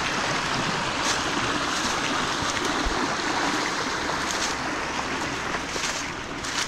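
Small brook rushing steadily over rocks, with a few short crackles of dry brush and leaves underfoot.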